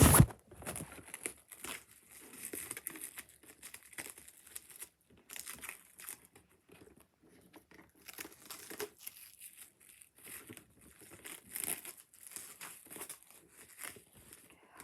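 Protective wrapping being pulled off a boxed collectible figure: crinkling and tearing in short, irregular bursts with brief pauses between them.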